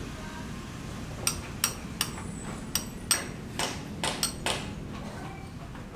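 Hammering: about nine sharp, irregular strikes, starting about a second in and ending about four and a half seconds in.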